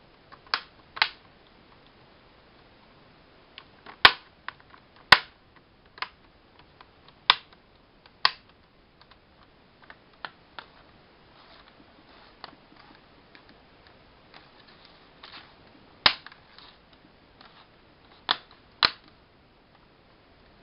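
Plastic laptop screen bezel being pressed back on, its clips snapping into place: a series of sharp plastic clicks at irregular intervals, in clusters with pauses between.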